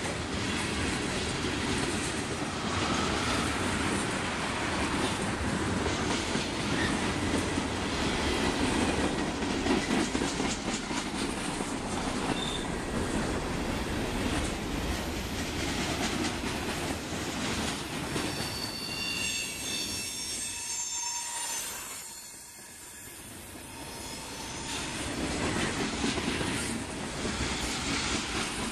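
Freight cars rolling past at close range: a steady rumble of steel wheels on rail with repeated clacks over the rail joints. About two-thirds of the way through comes a brief high squeal, while the rumble briefly dips.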